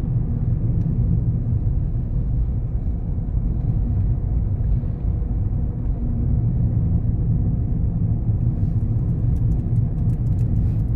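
A loud, steady low rumble, with a few faint clicks near the end.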